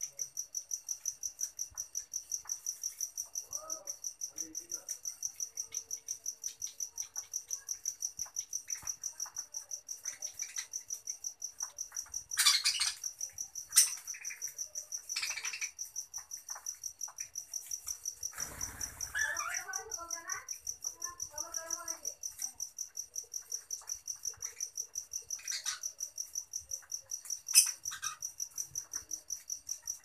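Budgerigars chirping and warbling in short bursts, most clearly about two-thirds of the way through, with a few sharp taps. Under them runs a steady, high-pitched pulsing chirp, about four a second.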